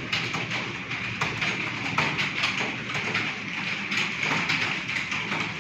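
Computer keyboards being typed on fast, a dense, irregular clatter of keystrokes with no pauses.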